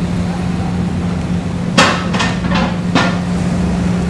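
City bus running with a steady engine hum, with four sharp knocks in quick succession about two seconds in, each ringing briefly.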